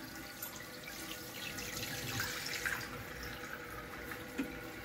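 Water running steadily into a toilet tank from the fill valve, left on while the flapper is off the flush valve, with a few small knocks as the new rubber flapper is fitted by hand.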